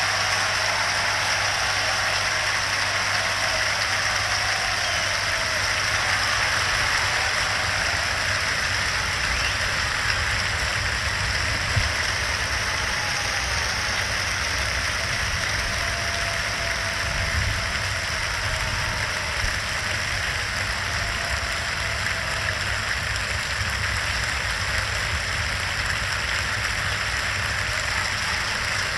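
Large concert-hall audience applauding steadily and at length, demanding an encore, on a 1953 broadcast recording with a steady low hum underneath.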